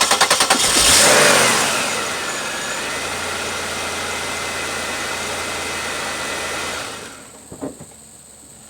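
2004 Chevy Impala's V6 cranking on the starter, hesitating briefly, then catching about a second in with a rev flare and settling into a steady idle; the no-start is cured by a good battery. The sound drops away about seven seconds in.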